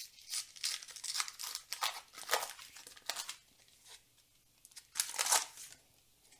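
Foil trading-card booster pack being torn open and crinkled, in several rustling bursts with a short quiet pause, then one more crinkle about five seconds in.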